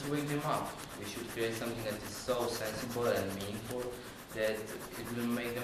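A young man speaking in short phrases, over a faint, fast, rasping background noise.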